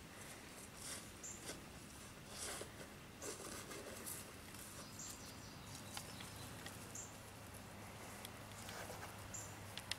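Faint rustling and scuffing of a puppy pawing and walking through grass and clover, with four short high chirps in the background.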